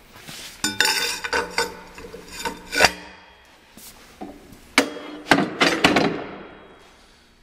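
Forged-steel breech mechanism of a breechloading cannon worked by hand: metal clanks and scrapes as the breech block is swung with its lever and a steel cartridge case is pushed in and ejected. The clanks come in a cluster, with a sharp one about three seconds in, then another run of clanks around five to six seconds in.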